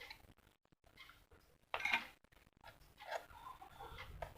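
Faint handling noises of small parts: scattered light clicks and rustles as the headphone and its speaker wire are handled, with one brief louder scrape about two seconds in.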